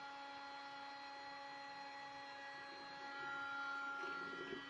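A steady electrical hum with a thin whine on top, several even tones held at one pitch, getting a little louder about three seconds in.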